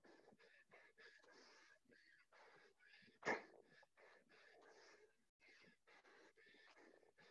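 Quick, repeated heavy breaths of a person exercising hard through a set of burpees, faint, with one louder sharp sound about three seconds in.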